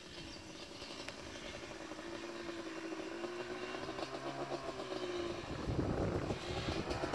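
Yamaha Banshee sport quad's two-stroke engine running as it comes down a sand hill, its pitch rising and falling with the throttle and growing steadily louder as it approaches. A short low rumble about six seconds in.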